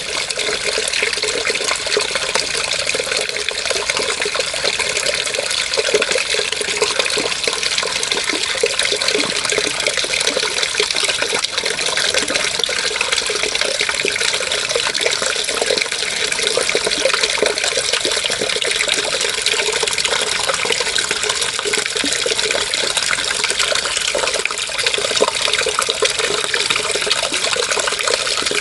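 Running water flowing and splashing steadily, with no pause or change.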